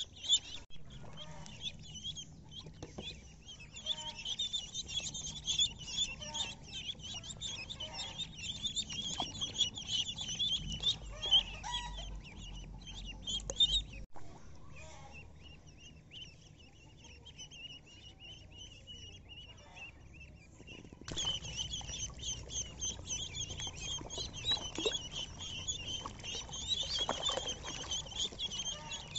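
A flock of ducklings peeping continuously, a dense chorus of short, high calls. The peeping turns quieter for several seconds about halfway through, then comes back louder with an abrupt change.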